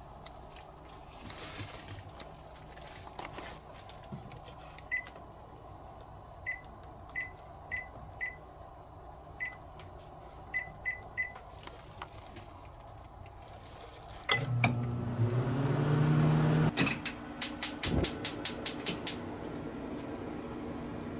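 Microwave oven keypad beeping as buttons are pressed, about nine short high beeps, then the oven starting up with a steady hum about two-thirds of the way in. Near the end, a quick run of about ten sharp clicks.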